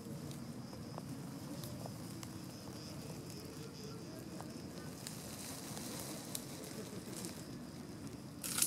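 Outdoor ambience: a faint steady high insect drone over a low rumble, with scattered light clicks and crackles, and a short sharp rustle near the end.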